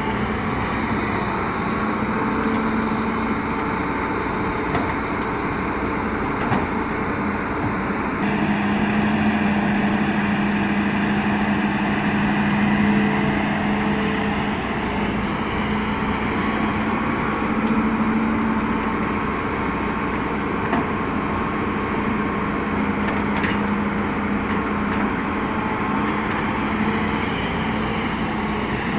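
Hitachi excavator's diesel engine running steadily while it works, a constant drone that grows louder about eight seconds in and rises and eases as the load changes.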